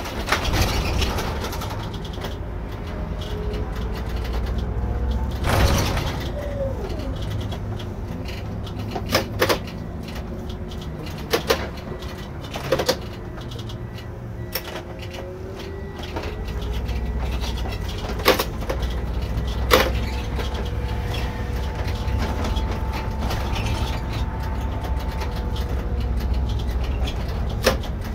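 Irisbus Récréo II coach on the move, heard from the driver's seat: a steady low engine rumble, a faint whine that rises and falls in pitch with speed, and several sharp knocks and rattles from the body over the road.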